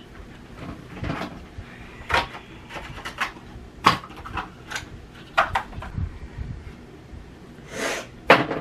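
Household items being handled and moved about: rustling with irregular sharp knocks and clatter as things are picked up and set down, the loudest knocks about four seconds in and just before the end.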